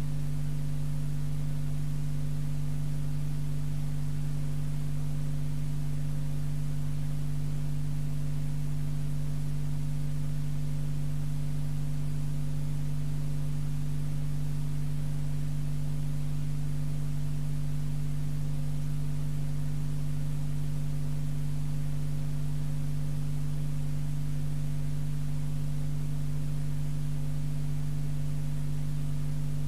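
Steady low electrical mains hum, a buzz at a few fixed low pitches over faint hiss, unchanging.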